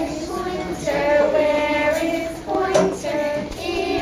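A group of young children singing a song together, with notes held for about a second each.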